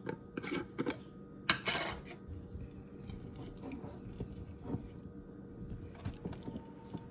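A glass jar's plastic screw lid is twisted off with a few sharp clicks and a scrape in the first two seconds. Then a plastic spoon scrapes and taps softly against the glass as it digs into the jar's solid white contents.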